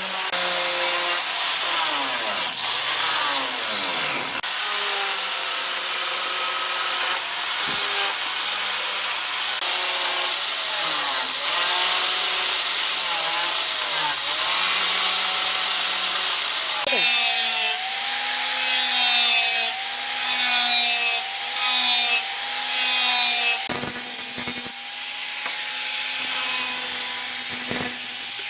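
Wood being cut and shaped with a tool: a steady rasping noise with a wavering tone that rises and falls.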